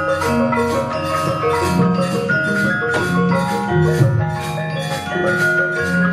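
Javanese gamelan ensemble playing: ringing metallophones in many overlapping notes over a low sustained tone, with a regular pulse of sharp hits about twice a second.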